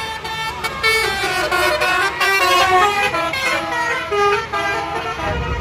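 A bus's telolet basuri musical horn playing a quick tune of stepped notes. A low vehicle rumble comes in near the end.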